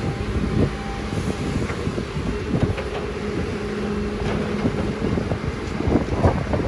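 Komatsu PC200 hydraulic excavator's diesel engine running under load with a steady hum, with irregular knocks and clanks as the boom swings and the bucket works in muddy water.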